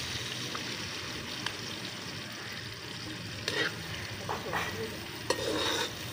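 Frying in hot oil in a steel karahi, a steady sizzle. A metal spatula stirs and scrapes the pan in a few louder strokes from about three and a half seconds in.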